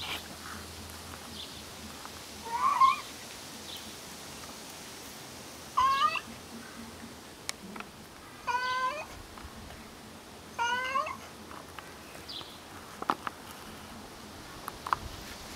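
Tabby cat meowing four times, short meows a few seconds apart, with a few faint clicks between them.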